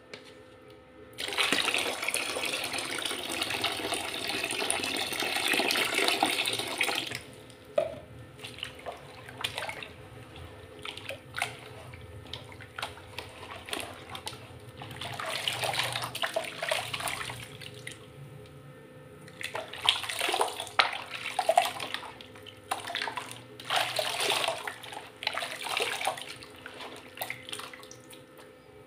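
Water poured from a cup into a plastic basin of crumbled dry mud, a steady pour lasting about six seconds. After that, hands squish and mix the wet mud in short, irregular bursts.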